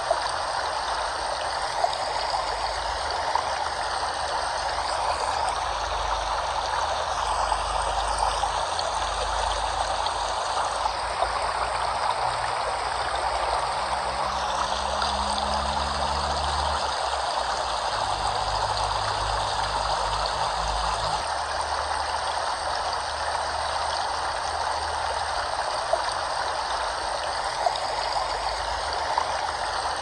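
Running water of a stream flowing steadily, an even rushing with a few brief louder moments.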